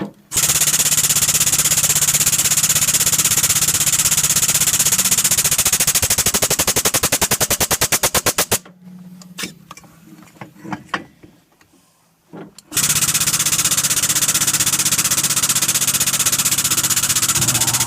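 Power hammer pounding hot steel between its forging dies in rapid repeated blows that slow and stop about eight and a half seconds in. After a pause with a few light knocks, it starts hammering fast again about thirteen seconds in.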